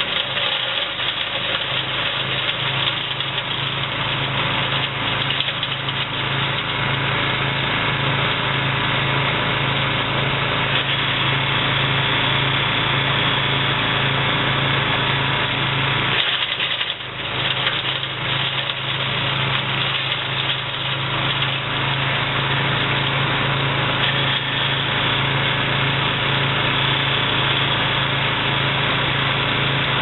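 Dosko compact commercial wood chipper running steadily as leafy branches are fed into it, with a brief dip in the sound about halfway through.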